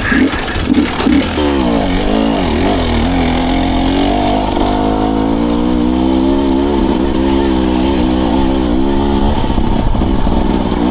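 Dirt bike engine riding along a trail, its pitch rising and falling with the throttle. It blips in short bursts at first, pulls more evenly through the middle, and turns choppy again near the end.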